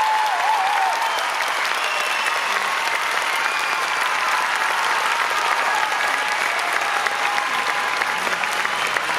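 Audience applauding steadily, a dense even clapping, with a few voices calling out over it near the start.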